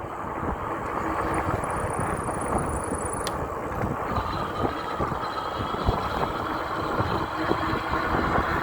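Steady road and wind noise of an e-bike being ridden through town. A faint high tone sounds for about two seconds near the start, and there is a single sharp click about three seconds in.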